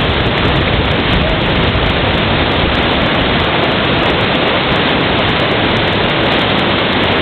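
River whitewater rapids: a steady, loud rush of churning water with no change in level.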